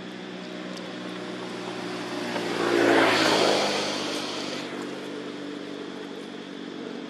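A motor vehicle passing by: it swells to its loudest about three seconds in and fades out by about five seconds, over a steady low hum.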